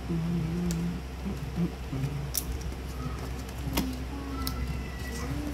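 Scissors snipping through a taped cardboard box, with sharp irregular clicks and crackles as blades, tape and cardboard are cut and pulled apart.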